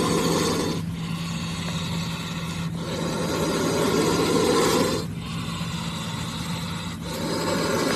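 A snake hissing in long, noisy breaths that swell and ease about every two seconds, over a steady low hum.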